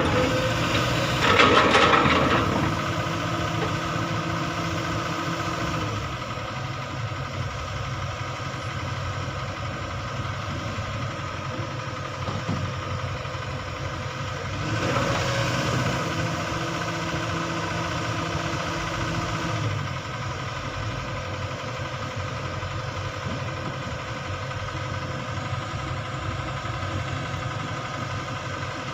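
Sany excavator's diesel engine running steadily, with two louder, noisier stretches, one about a second in and one about halfway through.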